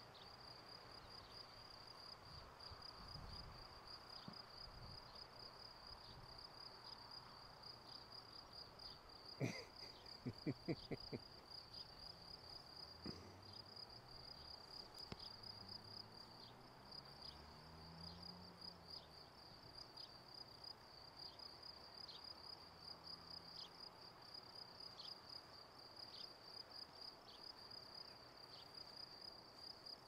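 Faint crickets chirring steadily in a grassy meadow, an unbroken high pulsing trill. About ten seconds in comes a short cluster of sharp knocks.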